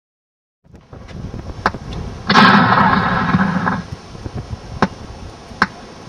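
Recorded sound effect from a pirate ship's waterproof sound effects system, set off from its push-button panel: a sudden loud blast about two seconds in that lasts about a second and a half and then cuts off. A few sharp clicks come before and after it.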